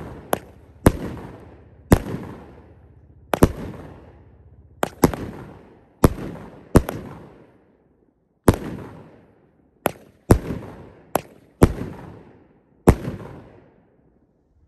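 A 200-gram consumer firework cake firing its shots one after another: about fifteen sharp bangs at uneven intervals, each trailing off in an echoing rumble, the last about a second before the end.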